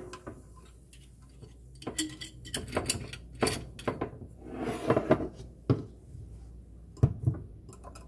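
Plastic spoon stirring a homemade cleaning solution in a glass measuring cup, clinking and tapping against the glass in a scattered series of light knocks.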